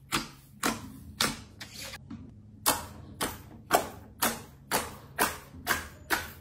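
Fingertips pressing into glossy slime, giving sharp clicky pops about twice a second, with a short pause about two seconds in, over a low steady hum.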